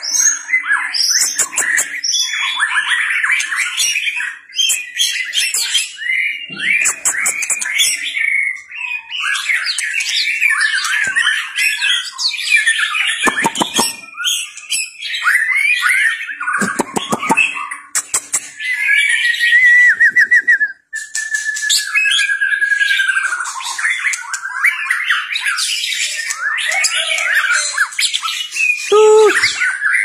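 White-rumped shama singing without a break: a long, varied run of whistles and warbles, cut by three harsh rattling calls and, a little past two-thirds through, a steady trilled whistle.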